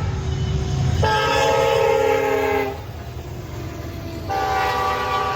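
Diesel locomotive air horn blowing two long blasts: the first fades about two and a half seconds in, and the second starts about a second and a half later. The low rumble of the passing train runs underneath and is strongest early on.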